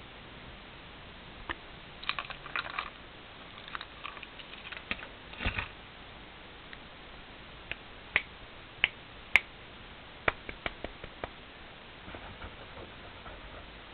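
A kitten's paws and claws scuffling and ticking as it pounces after a laser pointer dot: scattered light clicks and scratches, a soft thump about five and a half seconds in, then a run of sharper single ticks.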